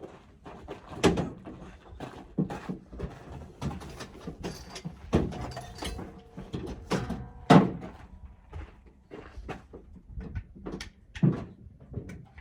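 Irregular knocks and thumps of camping gear being handled and set down, the loudest about seven and a half seconds in.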